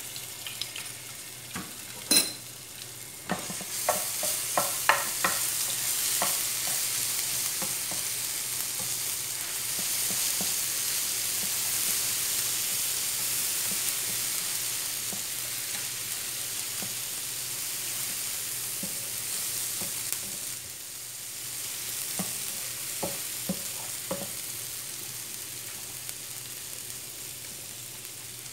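Chopped garlic sizzling in hot olive oil in a nonstick frying pan, stirred with a slotted spatula that taps against the pan. A sharp knock about two seconds in, then the sizzle builds and eases off after about twenty seconds.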